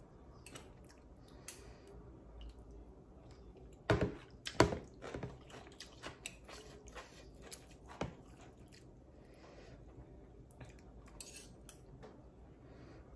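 Metal fork and spoon clinking and scraping in a plastic basin of noodle soup, with quiet chewing. There are a few sharp knocks about four seconds in and another near eight seconds.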